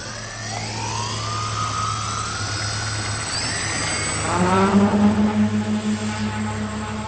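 Radio-controlled model Airbus A400M's four propeller motors spooling up on the takeoff run, several whining tones rising in pitch. About four seconds in, as the model lifts off, the sound settles into a steady, lower-pitched drone.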